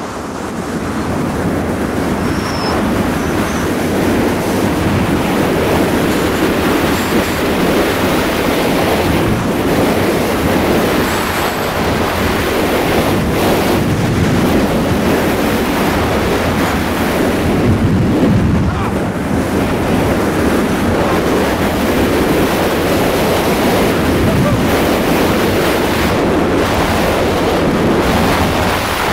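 Skier's descent: wind rushing over the microphone and skis scraping over packed snow, a steady loud rushing noise.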